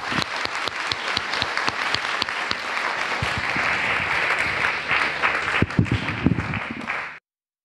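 Audience applauding: many hands clapping in a dense, steady patter that stops suddenly near the end.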